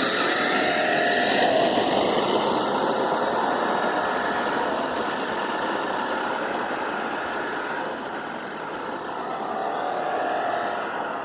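Remote-control Volkswagen Beetle model car driving on the road: its motor whining and its tyres rushing on the pavement, the whine rising and falling with its speed.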